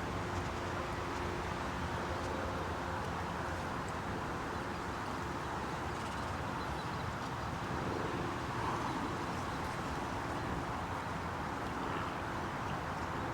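Steady outdoor background noise: wind on the microphone with a faint, low, steady hum underneath, and no distinct events.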